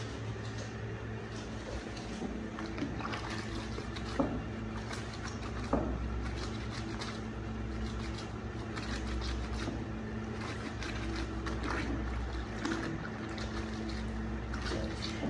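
Clothes being hand-washed in a plastic bucket of soapy water: cloth rubbed and squeezed between the hands, with irregular wet swishing and splashing, a little louder about four and six seconds in. A steady low hum runs underneath.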